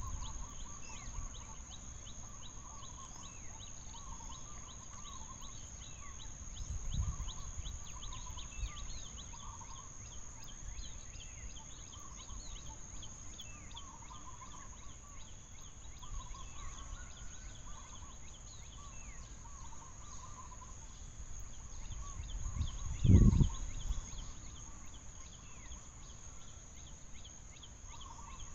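Repeated short warbling animal calls over a steady, high, insect-like drone, with scattered high falling chirps. There is a dull low thump about seven seconds in and a louder one about twenty-three seconds in.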